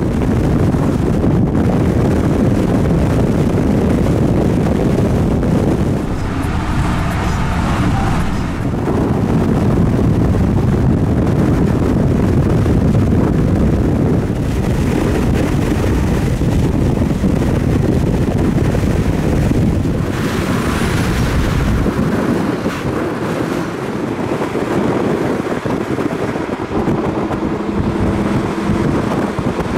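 Wind rush and road noise of a car driving at speed, with heavy wind buffeting on the microphone. The low rumble eases about three-quarters of the way through.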